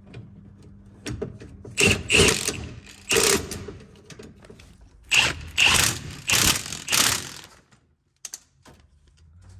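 Ratchet wrench clicking in two runs of strokes, one about two seconds in and another from about five to seven seconds in, as the engine mount bolts are tightened down.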